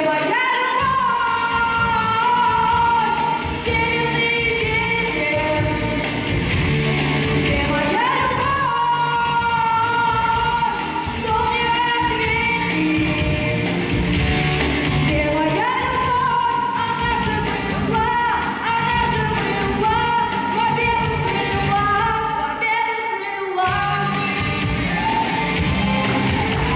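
Live folk-rock song: a woman singing the melody over a band with a steady beat. The drums and bass drop out for about a second near the end, then come back in.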